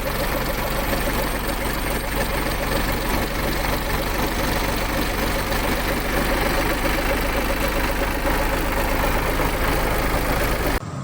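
Volvo FL10 truck's diesel engine idling steadily; the sound cuts off suddenly near the end.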